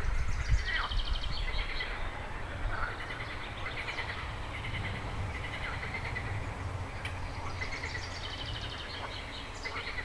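Spring chorus of frogs and birds at a backwater: short runs of rapid pulsed trills repeat every second or two, with a few short sweeping calls between them. A low rumble sits under the first second.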